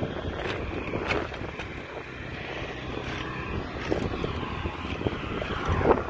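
Footsteps on roof tiles as a man walks across them, a few scuffs and knocks with the loudest near the end, over wind rumbling on the microphone.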